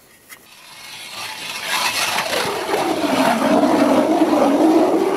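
Nero 180 mm hand ice auger being cranked into wet lake ice, its semicircular blades cutting with a low rumble. The sound builds up over the first two seconds and then keeps on loud and steady.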